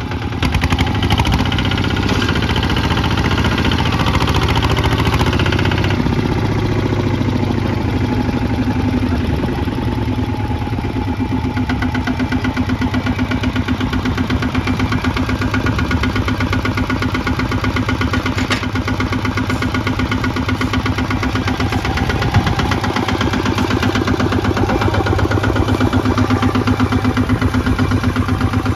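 Kubota ZT155 single-cylinder diesel on a two-wheel walking tractor running with a steady, rapid chugging beat, under load as its lugged wheels dig into wet sand.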